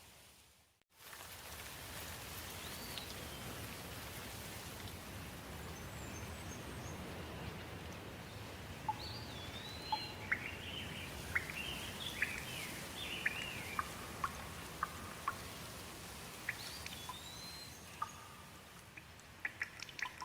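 Steady rain with songbirds calling over it: a few rising-and-falling whistled notes and a run of quick chirps in the middle. The sound drops out briefly about a second in, and a few sharp drip-like ticks come near the end.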